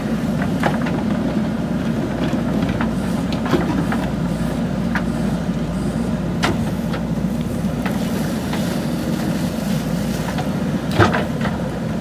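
JCB backhoe loader's diesel engine running steadily under load as the backhoe digs, with scattered short clanks and knocks from the bucket and arm; the sharpest knock comes near the end.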